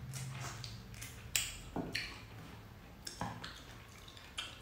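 Close-up chewing of juicy pineapple: irregular wet clicks and crisp smacks, a few a second, with the loudest about a second and a half in.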